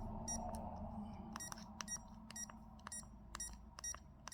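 Key-press beeps from a PicoAPRS handheld transceiver as its toggle is clicked through menu settings: about a dozen short, high beeps in quick, uneven succession.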